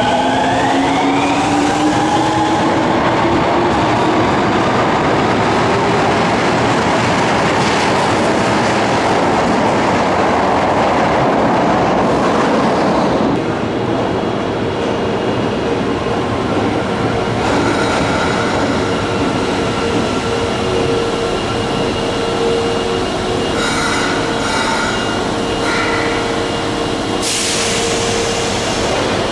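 Subway train pulling out of the station, its traction motors whining upward in pitch as it accelerates over loud wheel and rail noise. About halfway through, the sound drops suddenly to a quieter steady hum of a train at the platform, with a few short tones and a burst of hiss near the end.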